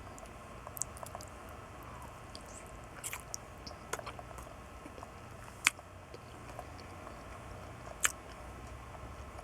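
A person quietly chewing a mouthful of hard-boiled egg with mayonnaise, with scattered soft, wet mouth clicks. The loudest click comes a little past halfway, and another follows near the end.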